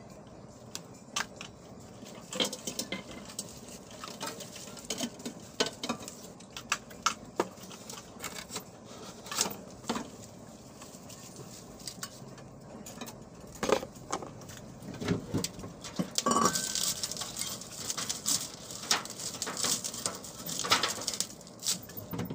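Handling a metal flood light fixture and its packaging: scattered clicks, knocks and clinks from the metal housing and glass front cover, with paper and plastic rustling in stretches late on.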